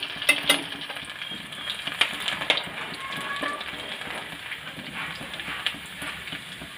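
Chopped garlic sizzling and crackling in hot mustard oil in a kadhai while a slotted steel spatula stirs it, with a few sharp clicks of the spatula against the pan near the start.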